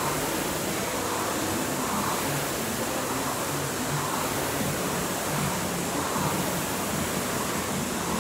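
Concept2 rowing machine's air-resistance flywheel whirring, with a rushing surge on each pull about every two seconds.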